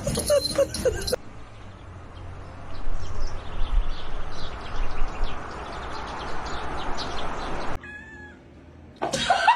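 A cat meowing in short calls, then a few seconds of scratchy, clicking rustle.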